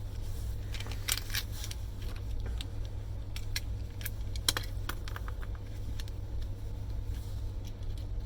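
Scattered clicks and small metallic clinks as circuit breakers are taken apart by hand and their small copper, steel and silver-plated parts handled and set down, over a steady low hum.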